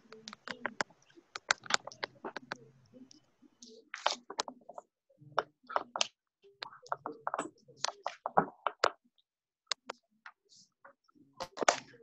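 Choppy video-call audio: scattered clicks and brief broken snatches of a voice that keep cutting out to dead silence.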